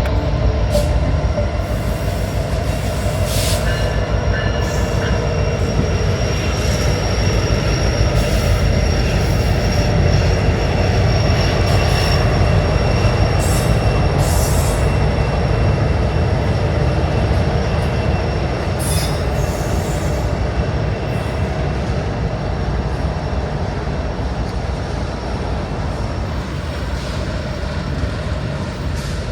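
Union Pacific freight train of auto rack cars rolling past: a steady loud rumble with clicks from the wheels, and thin high wheel squeal drawn out over it.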